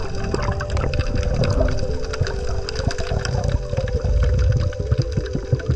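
Water noise picked up by a camera underwater: a rough, uneven low rumble with sloshing pulses, over steady held tones of background music.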